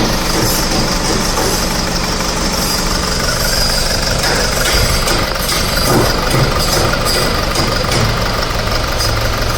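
Four-cylinder common-rail diesel car engine idling steadily, missing because its number 4 injector is not working.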